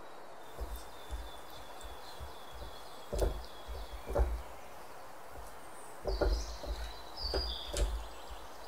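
Silicone pastry brush dabbing and scraping butter around the cups of a metal muffin tin, giving irregular soft knocks and bumps, the loudest clusters about three seconds in and again around six to eight seconds.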